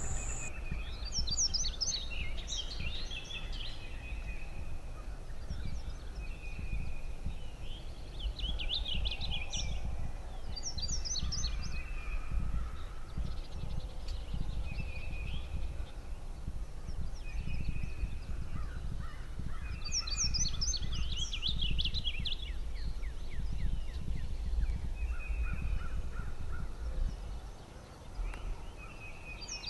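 Wild turkey gobbler gobbling a few times among repeated songbird calls, over a low steady rumble.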